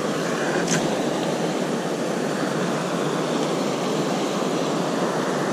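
Steady rush of fast-flowing water where the drainage channel pours into the lake, with one light click under a second in.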